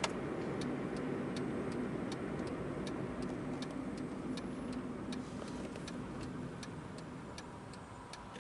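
A car's turn-signal indicator ticking in an even rhythm, about two to three ticks a second, over the low road and engine noise inside the cabin of a slowly moving car.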